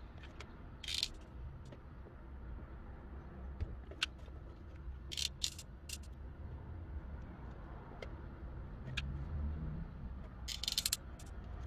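Hot glue gun and clear plastic bottle being handled as glue is run around the bottle neck: scattered small clicks and short plastic crinkles, with a cluster of them near the end, over a low steady hum.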